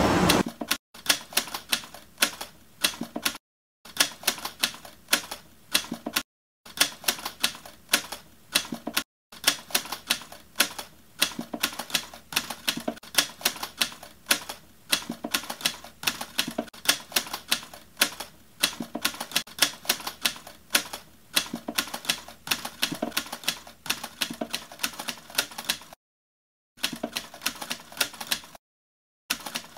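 Typewriter typing sound effect: rapid key clicks that stop for short silent breaks every few seconds.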